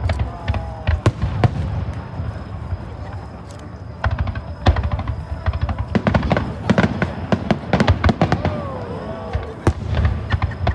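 Aerial fireworks bursting in quick succession, sharp cracks over low booms, with music playing alongside. The bursts thin out about two seconds in and come thick and fast again from about four seconds.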